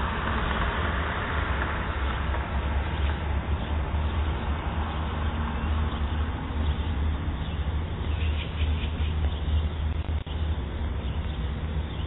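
Outdoor street ambience through a security camera's microphone: a steady low rumble, with traffic hiss that fades over the first few seconds. A magpie gives a short chatter about nine seconds in.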